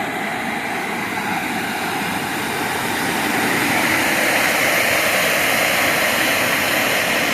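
River water rushing over a small waterfall, a steady loud wash that grows louder about three seconds in.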